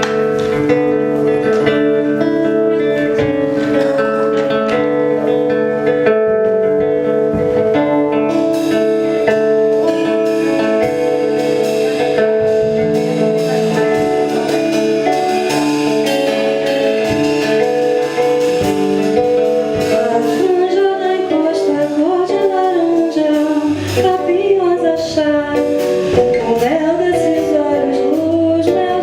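Brazilian popular music played by a small band of acoustic guitar, bass and drums; a singer's voice comes in about twenty seconds in over the instruments.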